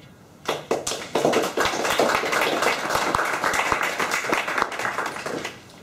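Audience applauding: many hands clapping, starting about half a second in and dying away near the end.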